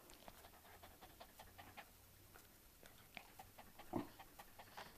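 A schnauzer sniffing and panting faintly, a run of short quick breaths, with one brief louder sound about four seconds in.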